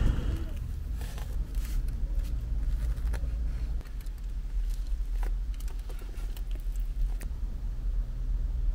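Light rustles and small clicks of a takeout container and its paper liner being handled and a soft steamed bun being torn open, dying away about seven seconds in. Underneath is a steady low rumble inside a car.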